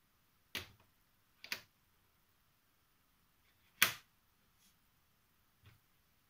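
Folded-paper origami units handled and set down on a wooden countertop: a handful of short, sharp ticks and taps, the loudest about four seconds in.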